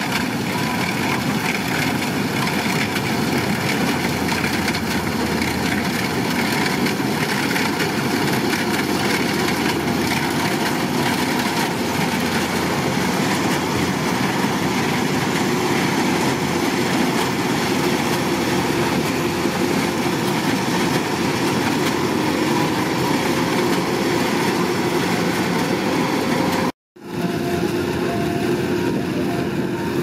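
Kubota DC-105X combine harvester running steadily while cutting rice: diesel engine together with the clatter of the header and threshing works. The sound drops out for a moment near the end, then resumes unchanged.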